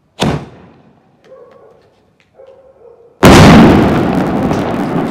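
A jumbo skyshot aerial firework going off. A sharp launch bang comes a moment in and fades over about a second. About three seconds later the shell bursts with a much louder bang, followed by a dense sustained noise that fades slowly.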